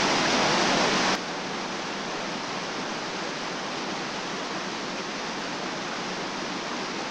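Steady rushing of white water over rocks in a stream's rapids; about a second in the sound drops suddenly to a quieter, steady level.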